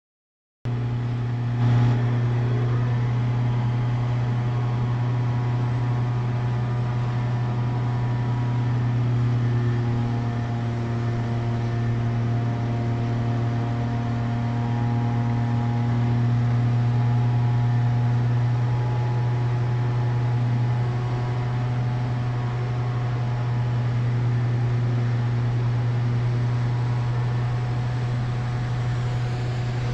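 Street sweeper truck running steadily, a low engine and fan hum with a few steady higher tones over it. A short knock about two seconds in.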